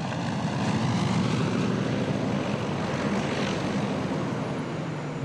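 Junkers Ju 52 three-engined propeller airliner flying low overhead, its piston radial engines droning steadily.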